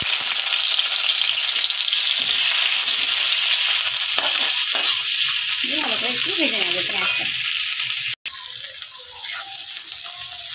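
Sliced onions sizzling loudly in hot mustard oil in a kadai, stirred with a spatula. After a brief break a little after eight seconds the sizzling goes on at a lower level.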